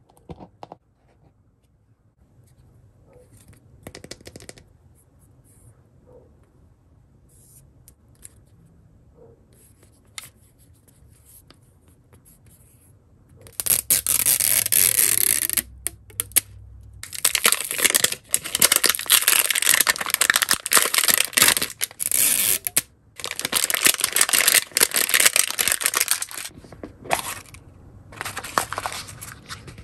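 Hands tearing and peeling the crinkly plastic wrap off an L.O.L. Surprise Mini Sweets ball. Only faint handling clicks for the first half, then loud crackling bursts with short pauses from about halfway.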